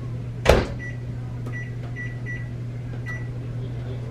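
Microwave oven door shutting with a sharp clack, followed by about five short high keypad beeps as the cooking time is punched in, over a steady low hum.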